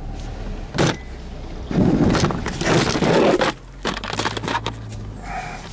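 Handheld camcorder being picked up and turned, its body knocking and rubbing near the microphone: one sharp knock about a second in, then loud scraping and rustling for a couple of seconds, over the low steady hum of the car.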